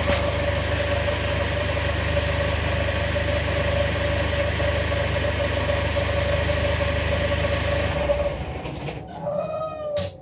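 2017 Camaro 2.0 L turbocharged four-cylinder idling with a steady whistle, then shut off about eight seconds in. A falling whistle-groan follows as it winds down, the odd noise the owner suspects comes from the turbo.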